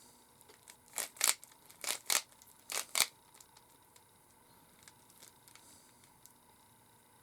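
Rubik's Cube layers being twisted: three quick pairs of plastic clicks and rasps in the first three seconds, then a few faint ticks.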